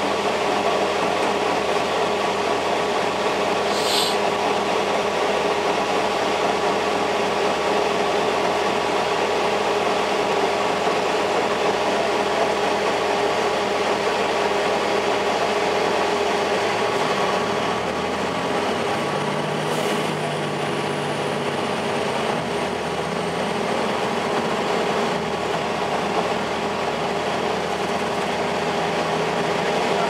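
Inside a 2002 Blue Bird CS school bus: the Cummins ISL9 inline-six turbodiesel idling under a steady whine from the heater blowers, then about 17 seconds in the engine note climbs as the bus pulls away and accelerates through the Allison automatic.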